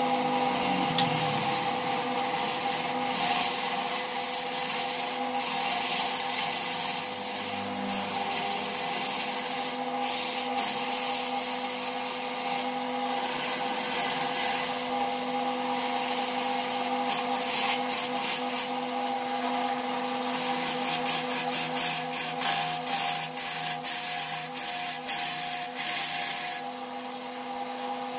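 Wood lathe motor running with a steady hum while a hand-held turning tool cuts the spinning wood blank, a continuous scraping hiss of shavings coming off. From about twenty seconds in the cutting becomes quick repeated scraping strokes, then drops away near the end, leaving mostly the motor hum.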